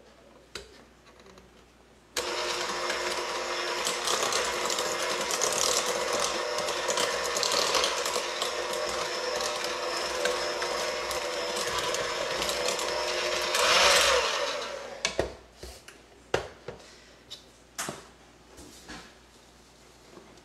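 Electric hand mixer switched on about two seconds in, running steadily while its beaters work flour and almond meal into creamed butter for a cookie dough, then switched off after about twelve seconds. A few light knocks follow.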